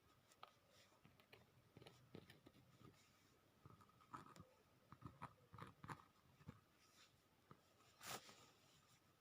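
Near silence broken by faint, scattered clicks and small knocks, irregular, the strongest one near the end.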